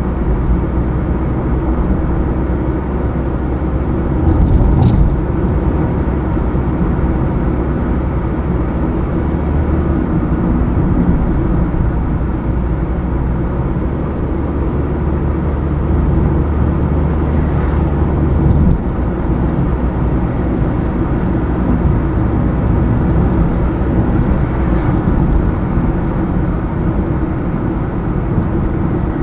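Car driving on a highway: steady engine and tyre noise with a low rumble, and a brief louder rush about four seconds in.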